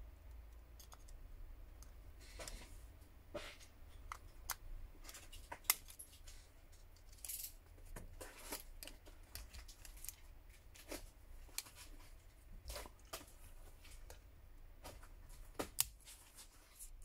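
Irregular small clicks and short scrapes of a metal spudger and screwdriver against a smartphone's plastic inner cover and frame as the cover is unscrewed and pried free of its clips.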